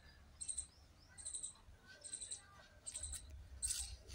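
Faint, short high chirps repeating five or six times, about one every three-quarters of a second, typical of a small bird calling.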